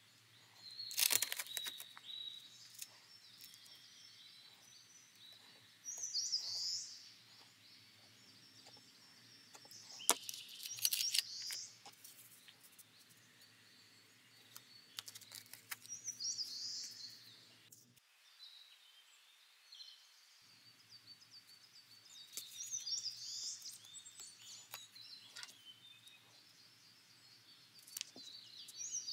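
Taped paper being cut with a craft knife and handled: short scraping and rustling sounds, loudest about a second in and again about ten seconds in. Birds chirp in the background every few seconds.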